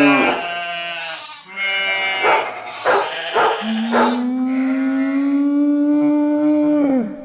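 A dog howling and barking: a rising and falling howl at the start, a few short sharp barks around three to four seconds in, then one long steady howl that drops in pitch and breaks off near the end.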